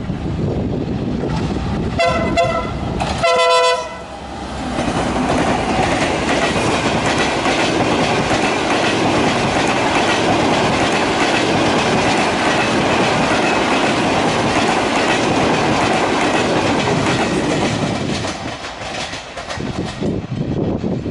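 A diesel locomotive's horn sounds two blasts about two and three seconds in. Then a passenger train runs close past: the locomotive and a long rake of coaches make a loud, steady rumble of wheels on the rails, which drops off near the end as the last coach goes by.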